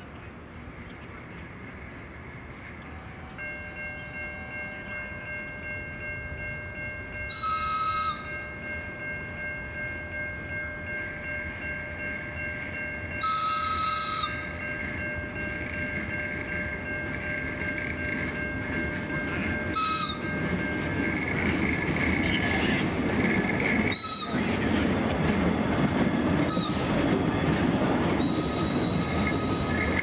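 Air whistle on a freight caboose blowing in separate blasts: two of about a second each, three short toots, then a long one starting near the end. Between the blasts the freight cars' wheels squeal steadily, and their rumble and clatter grows louder as the cars roll past.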